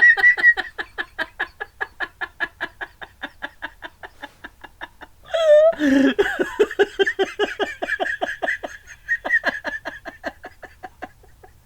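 A man's rapid, high-pitched giggling: a fast run of short pulses, about nine a second. Just over halfway through it breaks for a brief falling cry and a louder burst, then starts up again and trails off near the end.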